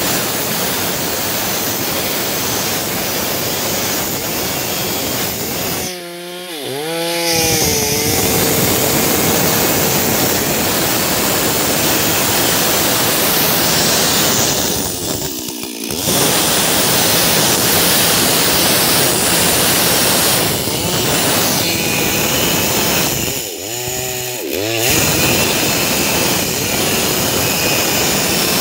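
Stihl MS 382 two-stroke chainsaw ripping lengthwise through a log at full throttle. Three times the engine briefly drops toward idle and revs back up before the cut goes on.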